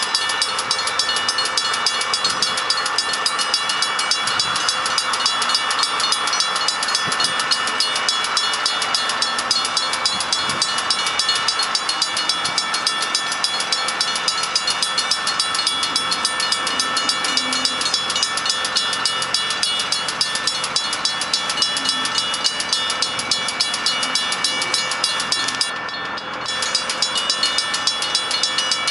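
Safetran railroad crossing bell ringing at an active grade crossing with the gates down, in a rapid, evenly repeating series of dings. The ringing briefly drops out near the end.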